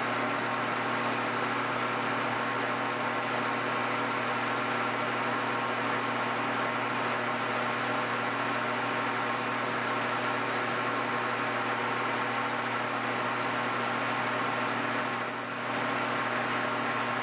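Metal lathe and live-tooling drill spindle running steadily, a twist drill cutting the lead hole for a cue's joint pin: an even machine hum and whine. A few brief high squeaks come near the end.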